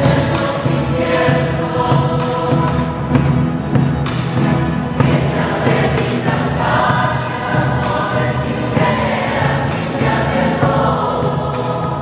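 Large mixed choir singing a song in unison and parts, accompanied by strummed acoustic guitars and a hand drum keeping a steady beat.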